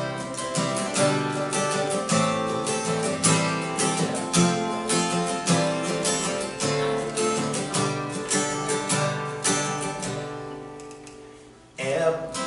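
Solo acoustic guitar playing a gentle picked-chord introduction, the notes evenly paced and ringing, fading away about eleven seconds in. A man's singing voice comes in with the guitar just before the end.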